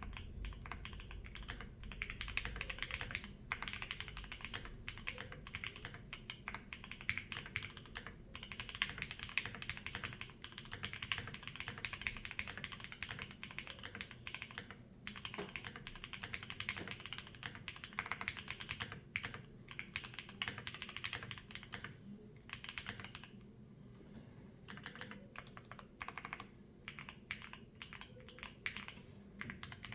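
Typing on a Monsgeek M1W mechanical keyboard with Gateron EF Greyish switches, an FR4 plate, GeekArk keycaps and stock stabilisers: fast, continuous keystrokes that thin out to slower, scattered key presses for the last several seconds.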